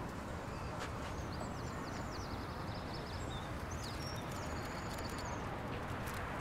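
Steady low outdoor city rumble, with rapid high-pitched bird twittering from about a second in until near the end, and a few light clicks.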